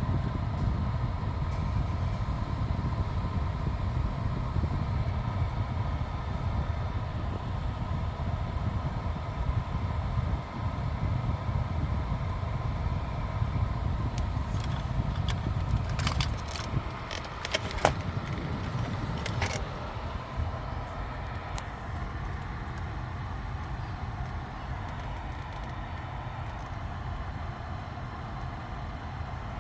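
Steady low rumble of a car heard from inside the cabin, with a few short clicks and rattles about two-thirds of the way through.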